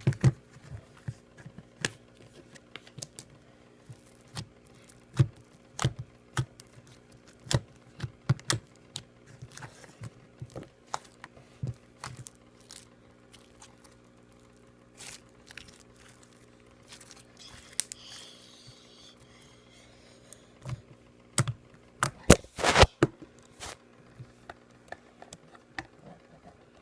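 Slime being squeezed and poked by hand: irregular sticky clicks and pops, with a quick cluster of louder pops near the end, over a faint steady hum.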